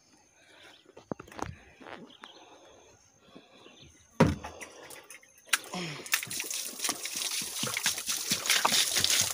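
Water splashing onto a pig pen's dirt floor: an even splashing hiss that starts about six seconds in and grows louder. Before it come a few scattered knocks and a sharp thud about four seconds in.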